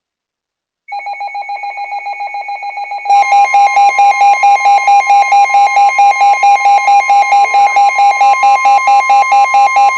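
A weather radio receiver's alert beeping rapidly, joined about three seconds in by a much louder steady tone near 1 kHz: the NOAA Weather Radio warning alarm tone that comes before a warning broadcast.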